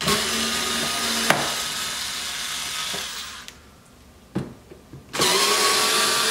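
Compact cordless driver whirring as it backs out T15 Torx screws from the wheel-well liner. It runs for about three and a half seconds, stops for a gap with a few clicks, then starts a second run that rises in pitch as it spins up.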